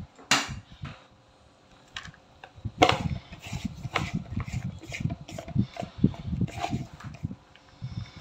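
Small plastic containers knocking and tapping against a plastic mixing bowl as ingredients are tipped in. There is a sharp knock near the start and another about three seconds in, then a run of quick, soft thuds and light clicks.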